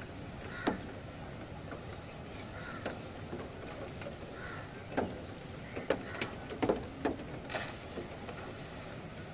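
Storm ambience: a steady rush of wind and rain, with irregular sharp taps and clicks scattered through it.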